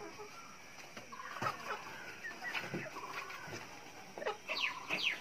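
Fancy poultry in their coops calling: short, rapid rattling calls now and then, and several high, falling calls in quick succession near the end.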